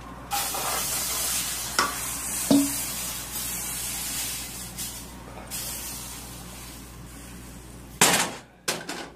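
Crepe batter sizzling as it hits a hot oiled skillet and is swirled. The hiss starts suddenly, is strongest for about five seconds and then dies down. About eight seconds in, the skillet is set back down on the electric coil burner with a knock.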